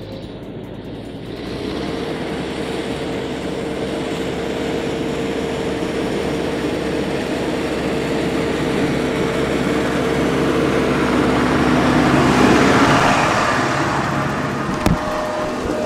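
McCormick B95 Max tractor's diesel engine running steadily as it drives toward the ground-level microphone pulling a corn planter, growing louder until it passes overhead about twelve to thirteen seconds in. A sharp click sounds near the end.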